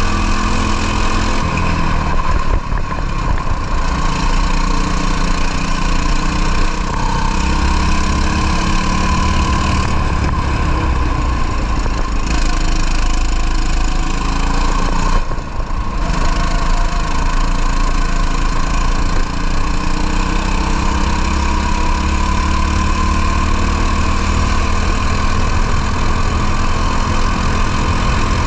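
Racing kart engine running at speed, its pitch climbing as the throttle is held and dropping briefly twice as the driver lifts off.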